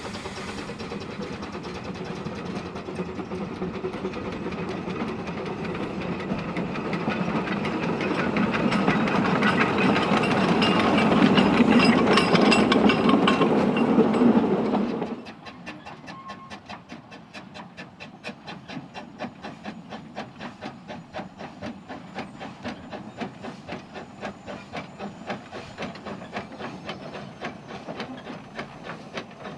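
Small narrow-gauge steam locomotive hauling wooden coaches passes close by: steam exhaust and wheel clatter grow steadily louder to a peak as the coaches go by, then cut off suddenly about halfway through. After that, a quieter, even run of regular beats from a small steam locomotive working slowly, steam leaking at its cylinders.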